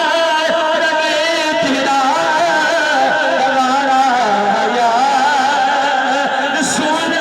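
Music: a voice singing a long, wavering melody in held notes, in a Middle Eastern style.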